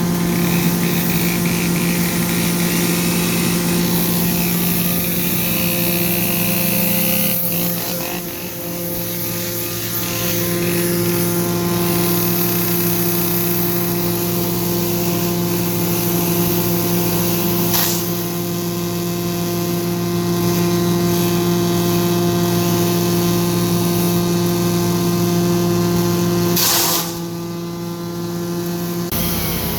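Diesel engine of a Bobcat E32 compact excavator running steadily, with its pitch and level dipping about seven seconds in and again near the end as the engine speed changes.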